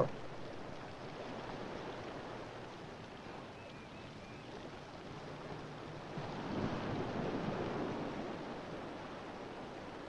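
Soft wash of surf, a steady rushing noise that swells into a wave about six and a half seconds in and then ebbs.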